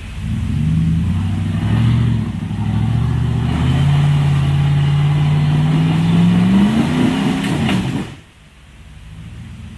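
Off-road vehicle engine pulling under load on a trail, its revs rising steadily before the sound drops away abruptly about eight seconds in.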